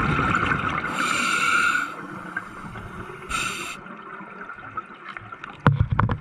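Scuba diver breathing underwater through a regulator: a loud hissing inhale for the first two seconds, then gurgling exhaled bubbles. A few sharp clicks near the end.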